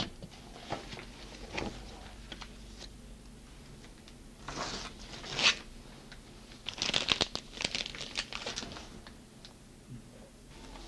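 Plastic disposable piping bag filled with meringue crinkling as it is handled, in a few short bursts a few seconds apart.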